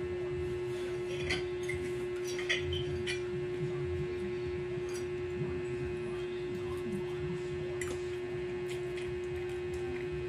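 A steady hum at one pitch runs throughout, with a few faint clicks of forks on plates and quiet noodle-eating noises.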